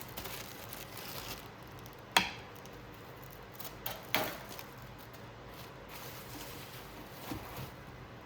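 A few sharp knocks and clacks of kitchen items being handled and set down on a hard surface, the loudest about two seconds in and another a couple of seconds later.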